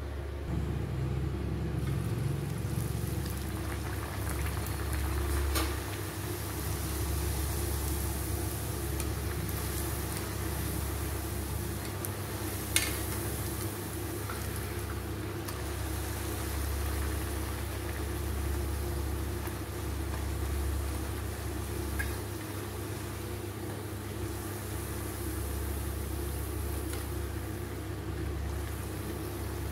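Poori deep-frying in hot oil: steady sizzling and bubbling over a low hum, with a few sharp clicks, the loudest about halfway through.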